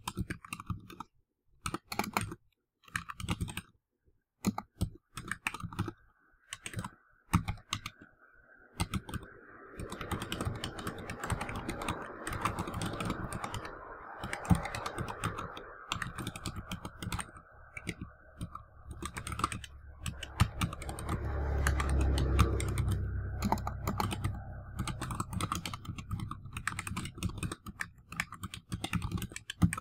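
Computer keyboard being touch-typed: quick runs of key clicks, one run per word, with short pauses between words. From about six seconds in a steady background noise sits under the typing, swelling into a low rumble around two-thirds of the way through and then easing off.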